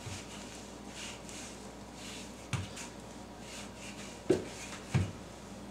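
Rolling pin working pie crust dough on plastic wrap over a pastry mat: faint swishing strokes, with three soft thumps in the second half.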